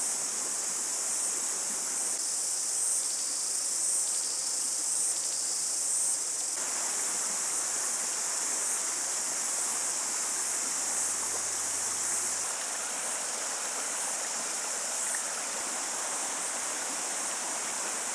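A steady, high-pitched chorus of insects over the rushing of a rocky bush stream. The water grows louder about six and a half seconds in.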